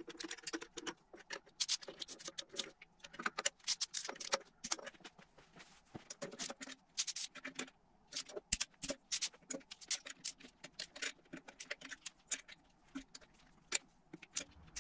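Ratchet wrench clicking as it tightens the nuts holding a turbocharger's turbine housing to the exhaust manifold flange, in irregular runs of quick clicks with short pauses.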